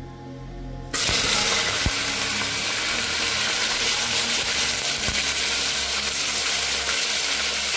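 Buffalo bones and skin dropped into hot oil with fenugreek seeds, sizzling loudly from about a second in, with a couple of short knocks against the pot.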